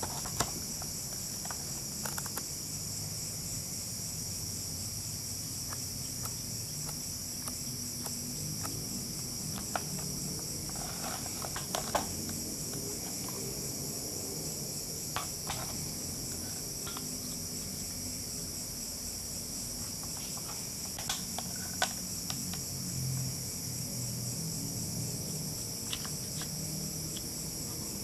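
Insects chirring steadily at a high pitch. Scattered light clicks and taps come through it every few seconds as a plastic power adapter and its cables are handled.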